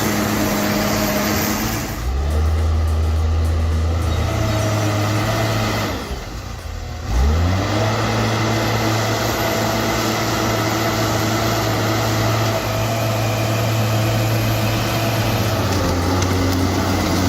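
Forestry skidder's diesel engine running steadily under load, dropping off briefly about six seconds in, then revving back up a second later and running on.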